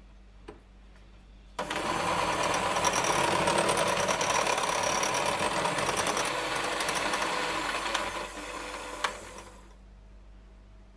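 Electric hand mixer with wire whisk beaters switched on, running steadily as it whisks thin batter in a glass bowl. It goes quieter shortly before it stops, with a click, near the end.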